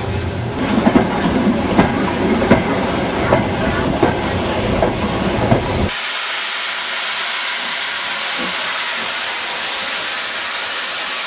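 A steam-hauled train in motion, its wheels knocking over the rail joints. About six seconds in, the sound switches to a steady, loud hiss of a steam locomotive blowing off steam from its safety valve.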